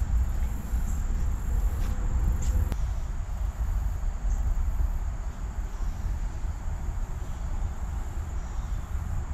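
Insects calling in a steady high-pitched drone over a constant low rumble, with a couple of light clicks about two seconds in.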